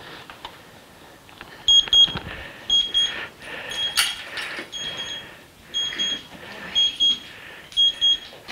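Digital timer alarm beeping, a short high beep repeated about once a second, some in quick pairs, starting about two seconds in. The 3-second countdown running out is the sound cue for a hearing dog in training.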